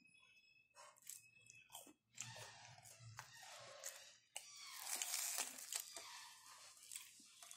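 Biting into and chewing a fried vegetable vada (garelu) dipped in peanut chutney: irregular crunches close to the microphone, loudest about five seconds in.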